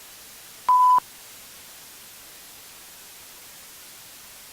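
A single short electronic beep, one steady tone, about a second in, over a steady background hiss.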